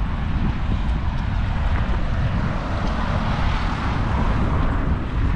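Steady outdoor rumble of city traffic mixed with wind buffeting the microphone.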